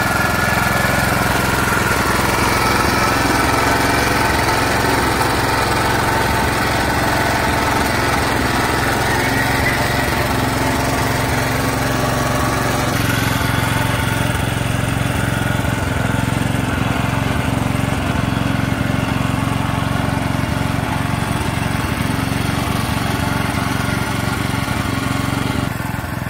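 Engine of a walk-behind two-wheel tractor (power tiller) running steadily as the machine is walked along. The sound shifts about halfway through.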